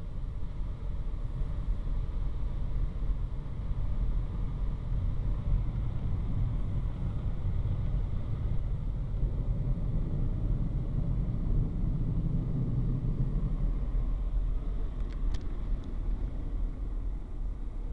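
Off-board MacNeil car wash dryer blowers running, a steady rumble heard from inside the car, easing off near the end.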